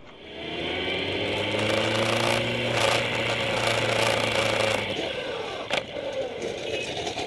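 Motorcycle engine running at speed with heavy wind rush, its note shifting up and down; the engine note drops away about five seconds in, and a sharp crash follows about a second later as a car collides with a motorcycle.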